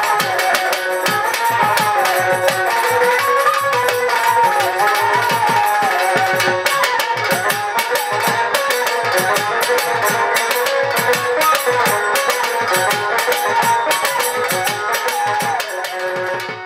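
Violin playing a Bengali Baul folk melody, accompanied by hand drums keeping a steady beat. The music begins to fade out right at the end.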